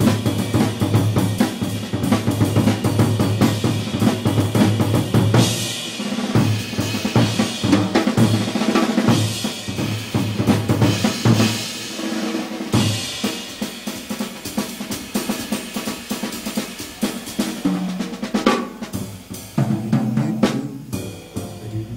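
Jazz drum kit played in a solo passage: busy snare and bass drum strokes with rolls, hi-hat, and cymbal crashes swelling up several times.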